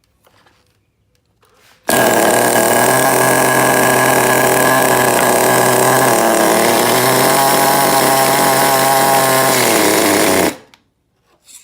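.18 nitro RC car engine running hard, with a brief dip in pitch around the middle. It starts suddenly about two seconds in and cuts off suddenly near the end, running on what is about the right fuel-air mixture.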